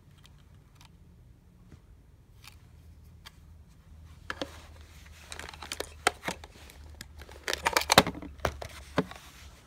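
Close handling noise of multimeter test leads and wires being worked into the screw terminals of a solar charge controller: scattered rustling, scraping and small plastic-and-metal clicks, picking up in the second half with a tight cluster of sharp clicks near the end.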